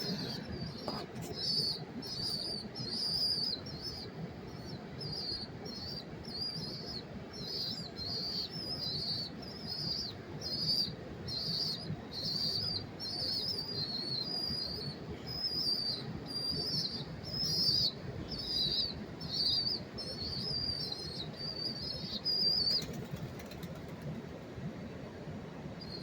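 Feral pigeon chicks chirping: a fast, unbroken run of high, squeaky peeps that stops about 23 seconds in and starts again near the end, over a low steady background rumble.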